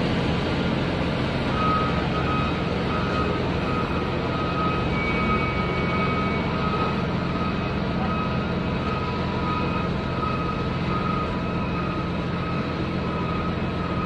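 Heavy diesel engine of a snow-clearing wheel loader running steadily, with a reversing alarm beeping from about a second and a half in.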